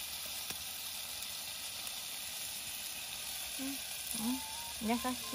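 Food sizzling steadily in a hot pan: sausages being reheated alongside a camembert melting for cheese fondue.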